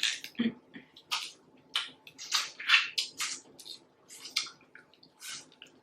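Close-up wet eating sounds: an irregular string of short smacks and slurps from chewing and sucking on food.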